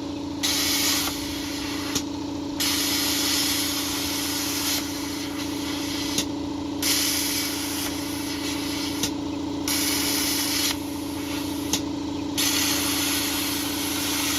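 Titanium 65 plasma cutter cutting sheet steel: a steady hiss of the arc and compressed air over a constant hum, breaking off briefly several times as the torch stops and restarts.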